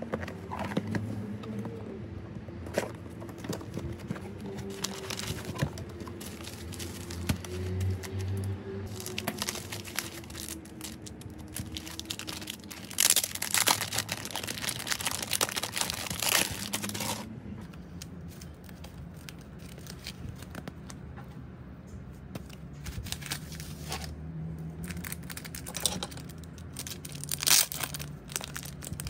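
Plastic packaging and bubble wrap crinkling and rustling as a parcel of photocard frames and a collect book is unwrapped by hand, louder and denser for a few seconds about halfway through, with a sharp crinkle near the end.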